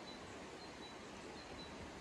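Steady rushing of a river flowing past, with faint, short high chirps at one pitch recurring every half second or so.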